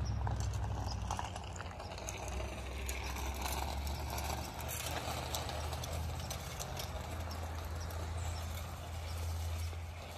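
Outdoor movement along a wet, slushy street: a steady low rumble and hiss with scattered light clicks and knocks.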